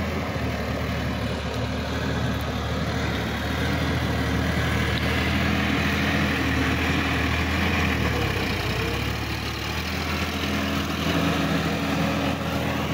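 Sonalika DI-50 RX tractor's diesel engine running steadily under load while tilling a flooded paddy field. The engine note shifts briefly about two-thirds of the way through.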